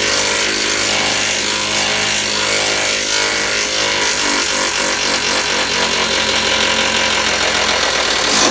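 Cordless power driver running steadily as it drives a 15 mm self-tapping bolt into the van's lower stud, cutting threads in the steel. It has a fine, rapid pulsing and stops suddenly at the end.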